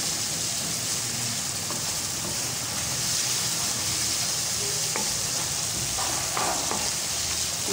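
Spice masala paste sizzling steadily as it fries in oil in a nonstick kadhai, stirred with a wooden spoon, with a few light clicks from the spoon. It is the bhuna stage, frying the masala until the oil comes up.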